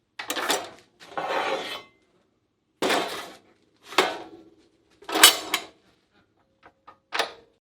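Steel fabrication parts being handled: about six short clanks and scrapes of metal on metal, spread out, with a few small ticks near the end.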